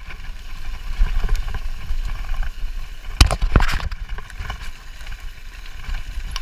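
Mountain bike rumbling and rattling over a bumpy dirt trail, with a pair of sharp knocks from jolts about three seconds in.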